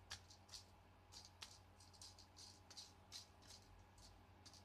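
Small rhinestones and pearls clicking and rattling in a plastic tray as a pick-up pencil rummages through them for a small one: faint, irregular little clicks.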